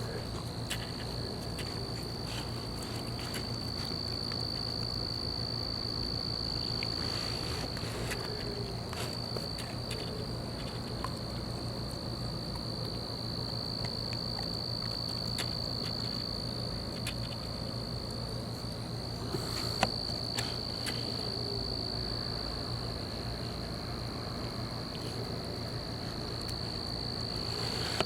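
A chorus of calling insects trilling steadily at one high pitch, with a few faint scattered clicks.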